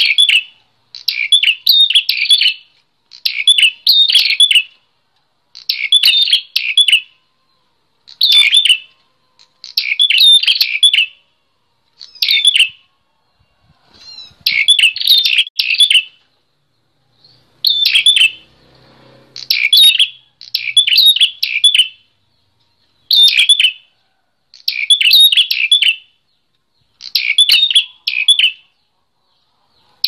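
Caged prenjak klawu, a small Indonesian warbler, singing vigorously. It gives loud, rapid chattering phrases about a second long, repeated every couple of seconds.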